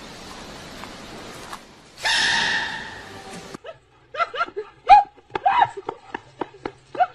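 A giant panda cub's sneeze, a squeaky burst about two seconds in. Then a dog yipping in quick, short, high yelps, several a second.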